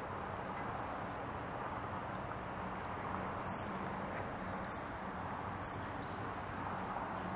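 Steady background ambience: an even noise bed with a faint low hum and a faint, evenly repeating high pulsing.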